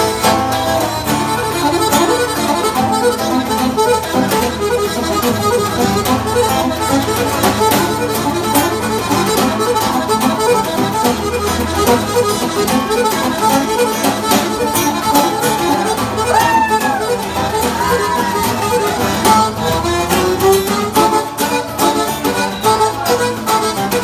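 Irish traditional dance tune played live on button accordion, with acoustic guitar strumming and a snare drum keeping a steady rhythm.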